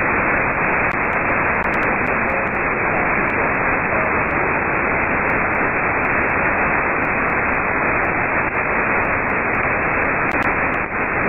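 Receiver static from an RTL-SDR software-defined radio in single-sideband (USB) mode with no station transmitting: a steady hiss with the treble cut off by the receiver's narrow filter.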